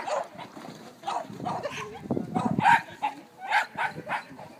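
A dog barking in short, excited barks, several times at uneven intervals, during an agility run.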